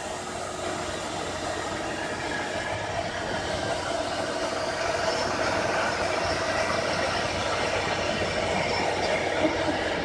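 PTP CNC router running: a steady machine noise with several steady whining tones, growing a little louder over the first few seconds.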